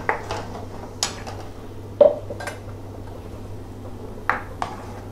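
A spatula stirring thick spinach puree in a metal pan, knocking and scraping against the pan in irregular clinks, the loudest about two seconds in.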